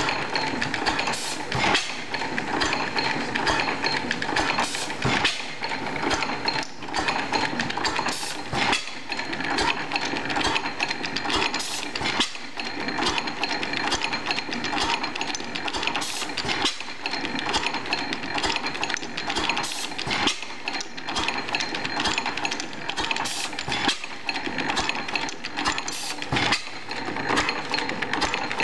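5 HP Springfield hit-and-miss gas engine running under its governor: a sharp firing stroke about every three to four seconds, with a steady fast clatter of the sideshaft valve gear and igniter trip while it coasts between firings.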